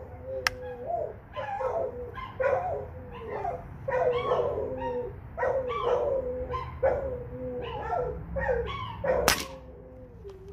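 Dogs barking repeatedly, about one to two barks a second. Near the end comes a single sharp crack, a shot from a .22 Diana Stormrider pre-charged pneumatic air rifle.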